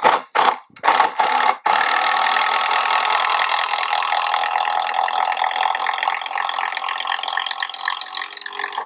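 Cordless impact driver driving screws into timber: a few short bursts on the trigger, then one long continuous run of rapid hammering clicks that stops abruptly near the end.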